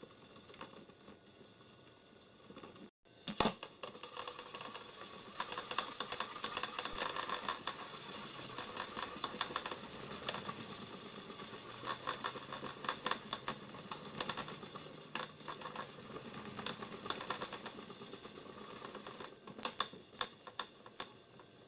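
Cloth rubbed briskly back and forth over a Power Mac G4's plastic side panel and Apple logo, polishing scratches out with Autosol: a steady scratchy rubbing with many small clicks. It cuts out briefly about three seconds in, then comes back louder, and eases off near the end.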